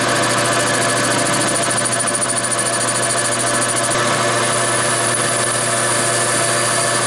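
A 13-inch metal lathe running steadily at speed while a cutting tool trims the end of a friction-welded 4130 chrome-moly steel tube. Its even machine hum carries a high whine over it.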